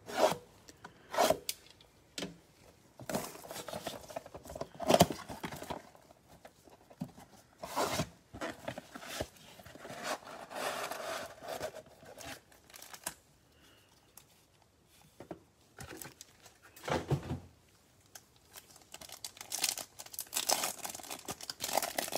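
Cardboard trading-card box being opened: a Westcott cutter slitting the seal, the cardboard tearing and the flaps scraping, then foil card packs crinkling in gloved hands near the end. Irregular rustling and scraping with two sharp clicks at the start.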